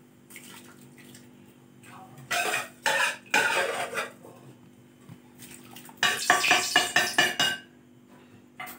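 Stainless-steel bowl and utensils clanking against a steel cooking pot as washed rice is tipped into boiling water, in two bouts of clatter about two and six seconds in.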